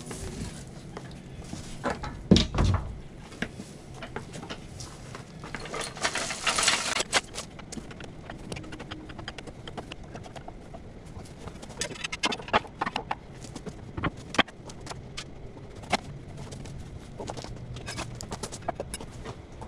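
Floor jack and jack stand being worked under a zero-turn mower: scattered metal clanks and knocks, the loudest a heavy thump about two seconds in, with clusters of clicks later.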